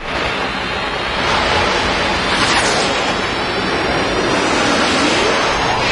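Rushing whoosh sound effect of an animated logo intro: a steady wash of noise with a few sweeping pitch glides passing through it.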